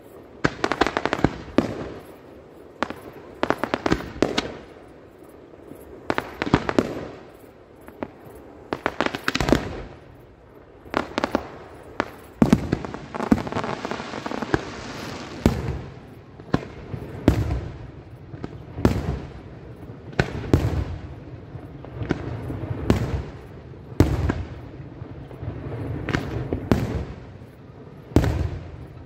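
Aerial fireworks display: shells bursting one after another, dozens of sharp bangs at irregular intervals, with a denser spell of crackle about halfway through.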